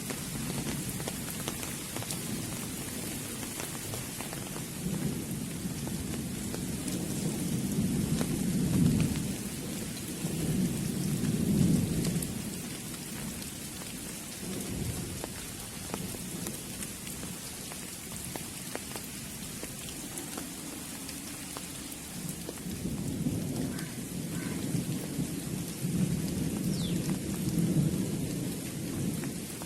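Steady rain falling, with two long rumbles of thunder, one in the first half and one near the end, each swelling and fading over several seconds.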